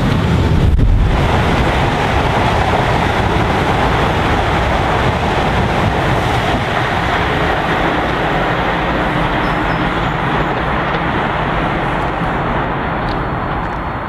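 Class 444 electric multiple unit passing close by at speed and running away, a dense rushing of wheels on rail and air that is loudest about a second in and then slowly fades.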